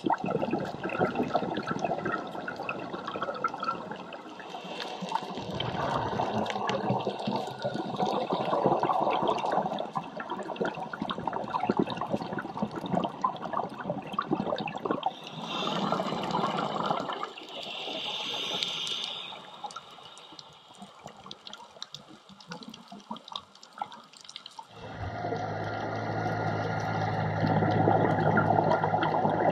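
Scuba diver's exhaled air bubbling out of the regulator underwater, in bursts a few seconds long with quieter gaps between breaths. About three-quarters of the way through a steady low hum comes in under the bubbling.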